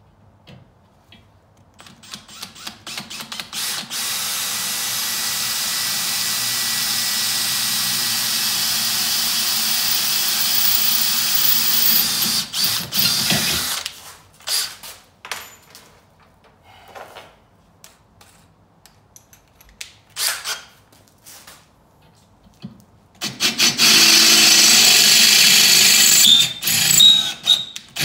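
Cordless drill boring into hard high-carbon steel angle iron clamped in a vise. After a few short trigger pulls it runs steadily for about ten seconds. Short bursts follow, then a second steady run of about three seconds near the end.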